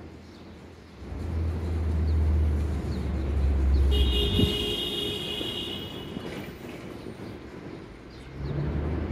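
Low rumble of street traffic heard from an elevated station, swelling about a second in and again near the end, with a brief high-pitched squeal about four seconds in.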